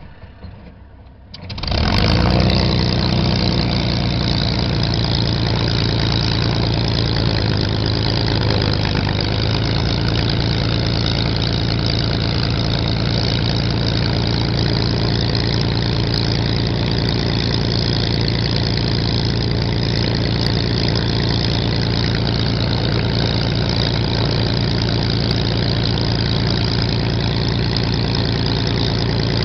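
Supermarine Spitfire's V12 aero engine starting up, catching about one and a half seconds in and then running steadily at a constant speed.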